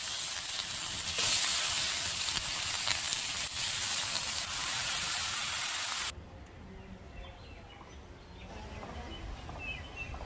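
Chicken frying hard in an oil-filled pan that has flared into flames, a loud steady hiss and sizzle. It cuts off suddenly about six seconds in, leaving a much quieter background.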